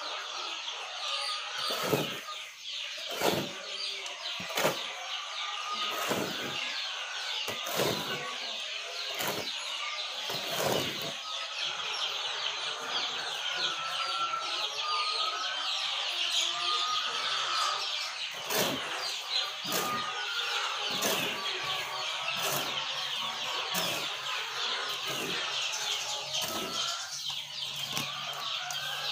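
A large flock of laying hens clucking and chattering in a steady din, with short chirps rising above it. Sharp knocks or scrapes recur about once every second and a half, pausing for a few seconds in the middle.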